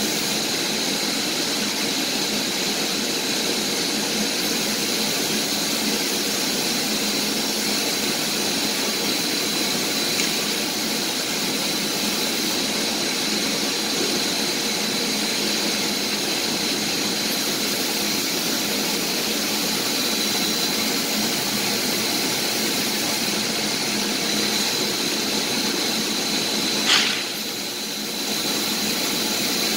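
Steady mechanical hum and hiss of running machinery with a thin high whine; one sharp click about 27 seconds in, followed by a brief drop in the noise.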